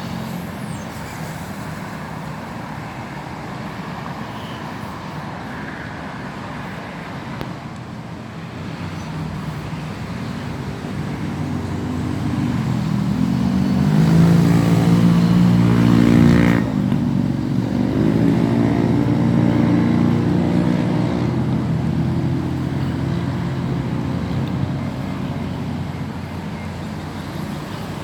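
Road traffic running steadily, with a motor vehicle passing close around the middle: its engine grows louder, changes pitch suddenly as it goes by, then fades.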